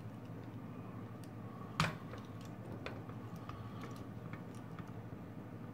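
Small plastic clicks and ticks from the parts of an electric salt and pepper mill's housing being handled and pressed together, with one sharper click nearly two seconds in.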